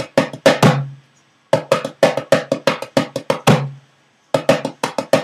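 Darbuka played in quick repeated phrases of sharp finger strokes in triplet groupings. Each phrase ends on a low, ringing doum, with a short pause before the next.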